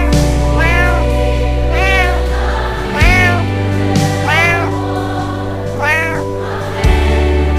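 A cat meowing six times, each meow a short call that rises and falls in pitch, over slow, sustained choir-like background music whose chord changes about three seconds in and again near the end.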